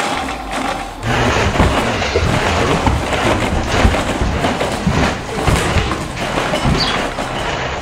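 Building shaking in an earthquake: a loud, continuous rumble and rattle with many thumps and clatters of furniture and fittings.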